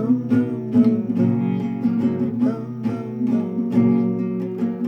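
Guitar strummed in a steady rhythm, chords ringing between the strokes.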